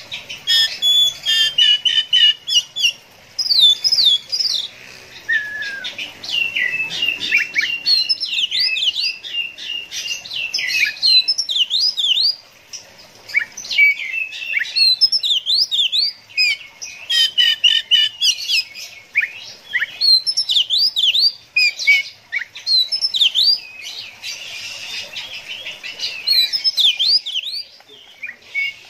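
Oriental magpie-robin singing a long, varied song of quick whistled notes, sweeps and trills, broken by a few short pauses.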